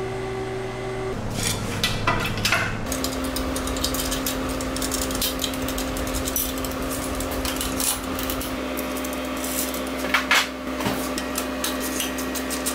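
Welded aluminium intake pipe being handled and fitted in the engine bay: light metallic clicks, taps and rubbing, with louder knocks about two seconds and ten seconds in. Underneath runs a steady mechanical hum.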